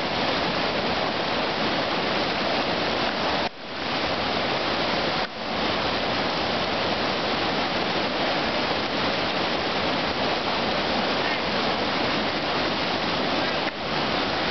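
Whitewater rapids rushing steadily, a loud even noise of churning water in a river hole. The sound briefly cuts out twice, at about three and a half and about five seconds in.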